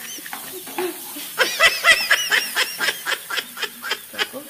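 A person laughing: a quick run of short, high-pitched giggles, about four or five a second, starting about a second and a half in and tailing off near the end.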